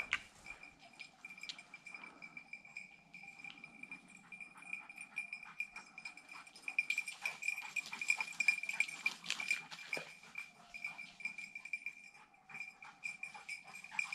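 Small bell on a hunting dog's collar jingling steadily as the dog searches through the undergrowth for shot game, getting louder in the middle, with the crackle of brush and footsteps.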